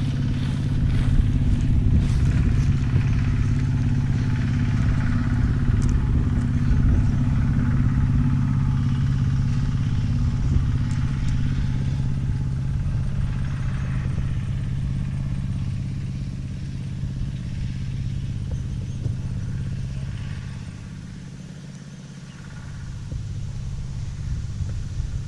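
An engine running steadily at an even speed, briefly dropping away a little past three-quarters of the way through, then coming back up.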